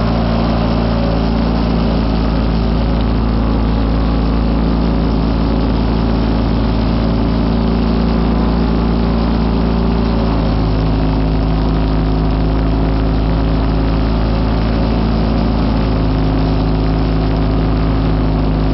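Kohler KT19 horizontally opposed two-cylinder engine of a Wheel Horse C195 garden tractor running steadily under load, driving a single-stage snow thrower that is throwing snow out of its chute. The engine note shifts slightly in pitch about halfway through and again near the end.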